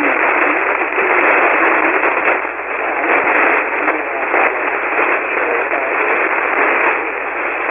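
Ham radio receiver on a 40-metre single-sideband frequency giving out loud, steady static hiss full of crackling crashes from lightning. A distant station's voice barely shows through the noise.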